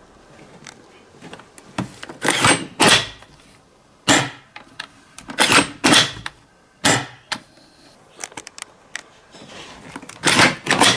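Handling noise from a Galaxy G31D airsoft sniper rifle replica: its parts knock and slide against each other in a series of short clacks and scrapes, about seven in all, with quiet gaps between them.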